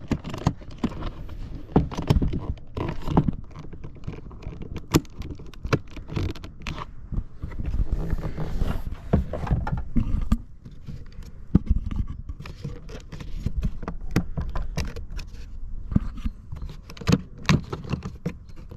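Irregular clicks, knocks and scraping of plastic door-handle parts being pushed, pried and worked loose inside a car door.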